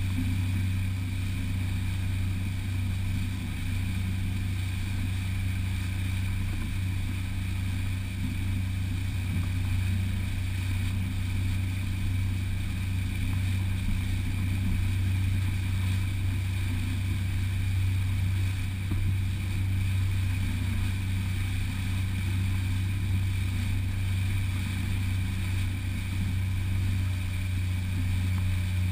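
Outboard motor of a small open fishing boat running steadily under way, a constant low drone that never changes.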